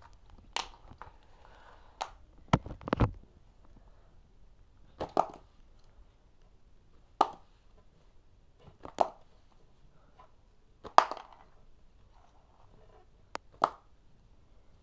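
Plastic markers being flipped and clacking as they land or fall, a string of sharp knocks about every two seconds, a few coming in quick pairs or triples.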